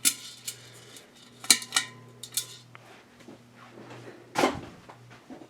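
Several sharp metallic clinks and a louder rustling knock about four seconds in, over the steady low hum of a running Hunter Robbins & Myers ceiling fan motor.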